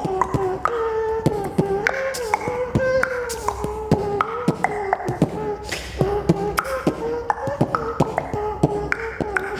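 A boy beatboxing: sharp mouth-made drum hits about twice a second, layered over a continuous hummed line that moves up and down in pitch.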